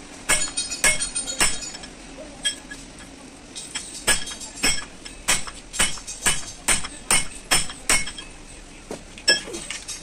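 Flat steel bar striking the end of an Ashok Leyland truck gearbox mainshaft: a series of about fifteen sharp metallic clinks, each ringing briefly. They come about one to two a second, with a pause about two to three seconds in.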